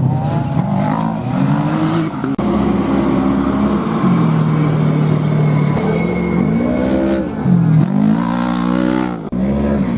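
Off-road race vehicle's engine revving up and down repeatedly as it accelerates and backs off. The pitch rises and falls every second or so and holds level for about two seconds midway.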